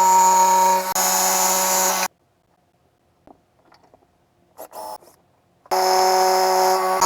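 Handheld power tool's electric motor running at a steady speed, stopping abruptly about two seconds in. A few faint clicks follow, then the motor starts running again near the end.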